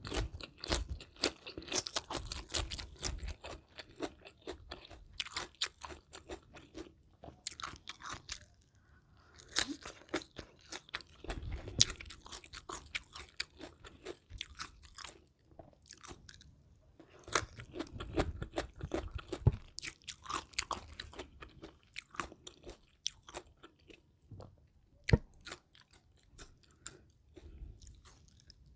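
Close-miked eating: crisp bites into batter-fried chicken and crunchy chewing, irregular crackles in clusters with a few sharper snaps.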